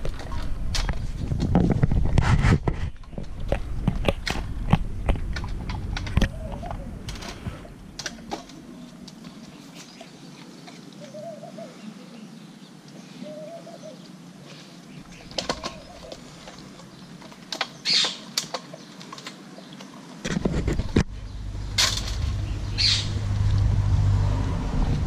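A dog eating dry kibble and cucumber slices from a stainless-steel bowl: rapid crunching chews and clinks against the metal bowl for the first several seconds. Then a quieter stretch with only scattered clicks, and a few more sharp clinks with a low rumble in the last few seconds.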